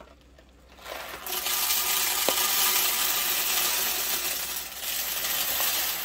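Whole roasted coffee beans poured from a bag into the bean hopper of a DeLonghi PrimaDonna Soul coffee machine: a steady rattle of many beans hitting the hopper, starting about a second in.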